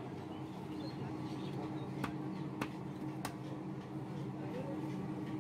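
A butcher's knife knocking three times on a wooden log chopping block while cutting beef, the knocks starting about two seconds in and roughly two-thirds of a second apart, over a steady low hum.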